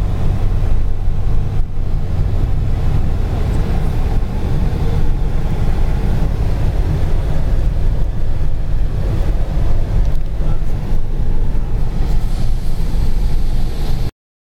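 Steady low rumble of a car's engine and tyres on the road, heard from inside the cabin while driving. It cuts off abruptly near the end.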